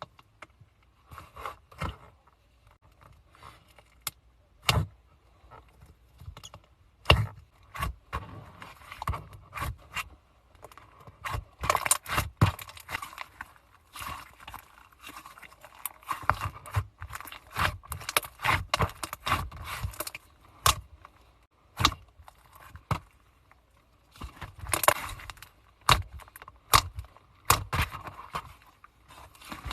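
Slime being pressed and squeezed by hand close to the microphone: irregular sticky clicks and pops in dense clusters, with short quieter gaps between.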